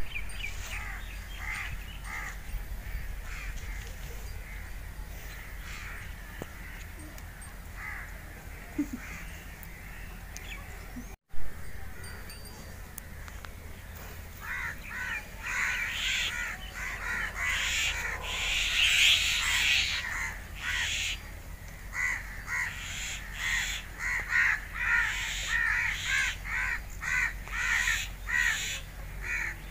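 Crows cawing over and over. A few faint calls come near the start, then from about halfway on a long run of loud caws, roughly two a second.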